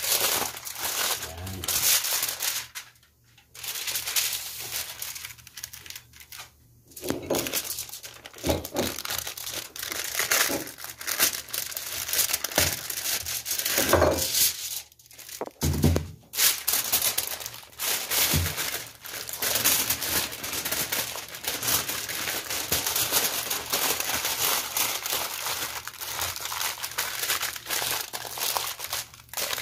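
Aluminium foil crinkling and rustling as hands fold and press it around a whole fish. It comes in bursts with a few brief pauses in the first half, then runs nearly without a break.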